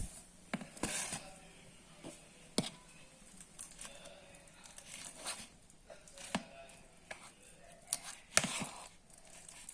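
A fork clicking and scraping against a dish in irregular knocks while someone tries to mash a firm avocado that won't give.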